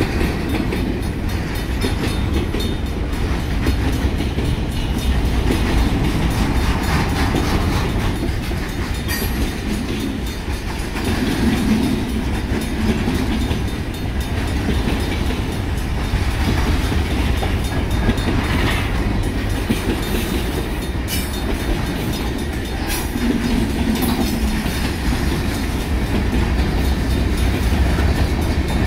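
Union Pacific manifest freight train's hopper cars and boxcars rolling past at close range: a steady low rumble, with the wheels clacking over the rail joints and the crossing and a few sharp metallic clanks. The grade crossing's bells ring throughout the activation.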